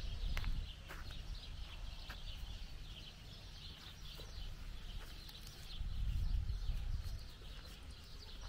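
Small birds chirping continually in quick short calls, over a low rumble that swells about six seconds in.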